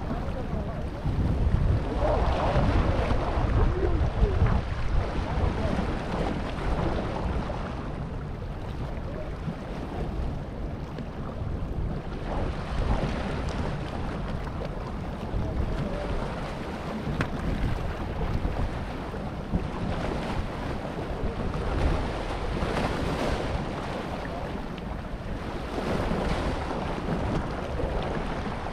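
Small waves washing over a low rock shelf at the water's edge, swelling and easing in irregular surges, with wind buffeting the microphone.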